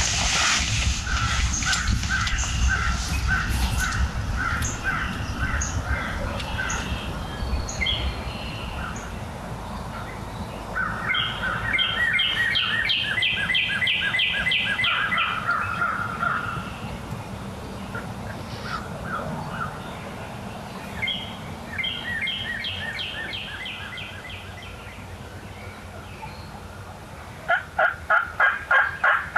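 Birds calling in spring woods: several series of repeated call notes, with a dense rapid run in the middle and a loud run of about eight short calls near the end.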